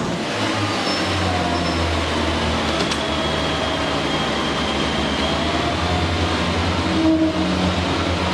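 Class 142 Pacer diesel multiple unit's underfloor diesel engine running at a station platform: a steady low drone that grows louder about a second in.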